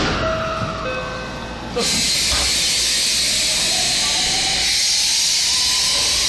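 JR West 223 series electric train departing: a loud steady hiss starts suddenly about two seconds in, under a faint motor whine that rises in pitch as the train gathers speed.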